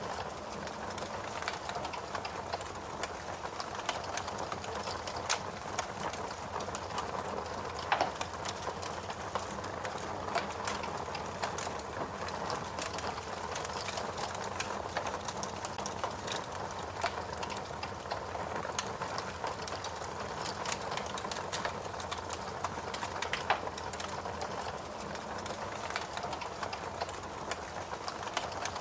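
Fire crackling: a steady hiss with irregular sharp pops and snaps, two of them louder, about eight seconds in and again later on.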